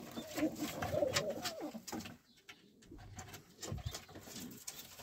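Domestic pigeons cooing in their loft for about the first two seconds, then quieter with a few light clicks and scuffs.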